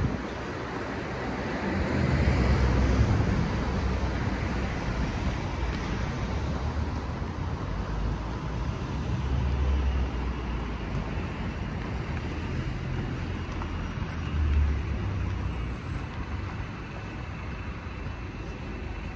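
Street traffic: road vehicles passing, one swelling past about two to three seconds in, with low wind buffeting on the microphone.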